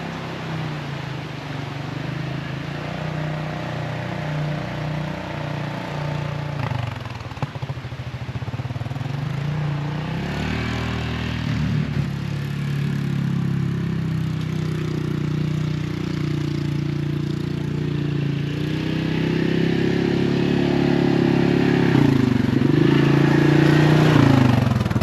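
Yamaha Grizzly ATV's single-cylinder engine running under way on a trail, its pitch rising and falling with the throttle. There is a brief dip in revs near the end.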